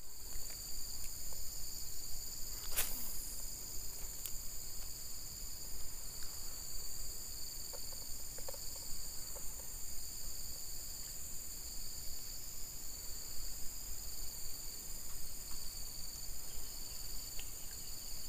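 Steady chorus of insects shrilling in several even high-pitched tones, with a light click about three seconds in.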